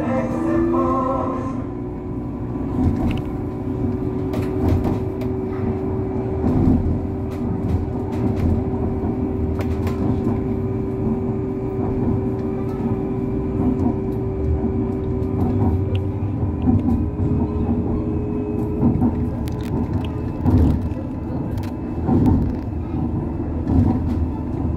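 Busan–Gimhae light-rail train running along elevated track: a steady rumble with a steady whine held for much of the run, shifting to a slightly higher tone near the end, and scattered clicks and knocks.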